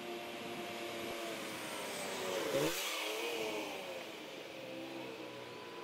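A car drives past, growing louder to a peak about two and a half seconds in, its engine note dropping sharply in pitch as it goes by, then fading.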